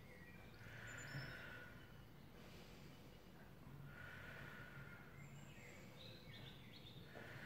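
Near silence: quiet room tone with a low hum and three faint, slow breaths about three and a half seconds apart, taken while holding a lying glute stretch.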